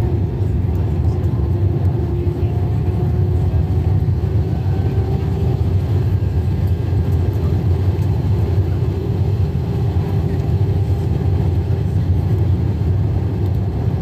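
Steady cabin noise inside an Airbus A319 airliner in flight: a loud, even roar of engine and airflow, with a faint steady engine hum running through it.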